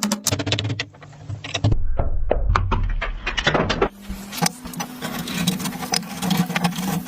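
Restoration work on clock parts in short edited clips: rapid clicks and knocks of tools and metal parts, with a low steady hum in places.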